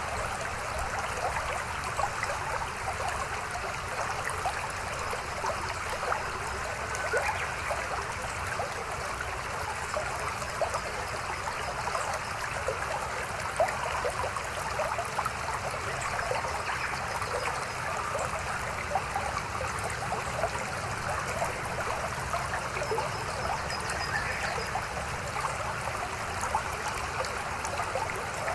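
Mountain stream flowing steadily over rocks, a continuous babble with many small splashes and trickles.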